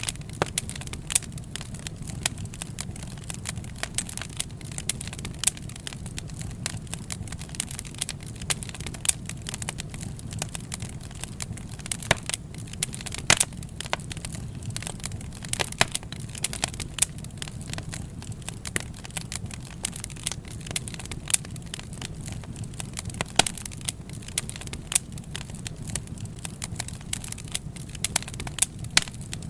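Wood fire crackling, with a steady low rumble of flame and frequent irregular pops and snaps.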